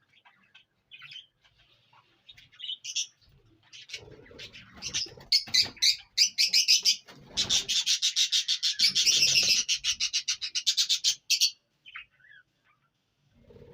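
Indian ringneck parakeet calling: scattered short high chirps, then a loud, fast, continuous run of shrill chattering calls lasting about five seconds from just before the middle, breaking off into a few last chirps.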